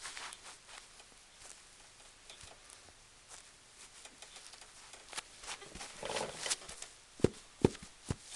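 Leather Sperry Top-Sider boat shoes moved about on the feet: scattered soft scuffs and clicks, a brief rubbing rustle about six seconds in, then a few sharp taps near the end.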